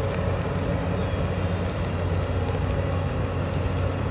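Hyundai crawler excavator's diesel engine running steadily as the machine's upper body swings round.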